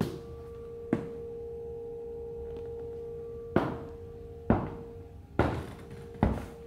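Footsteps on a tiled floor, a few slow steps with a gap in the middle and then about one step a second, over a steady humming tone that fades near the end.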